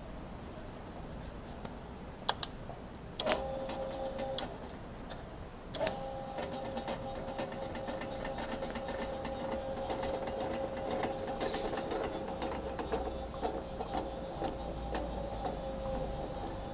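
Electric motor of an on-car brake disc lathe switched on with a click about three seconds in, stopping after about a second, then starting again and running steadily with a whine and mechanical rattle as it turns the car's hub and brake disc.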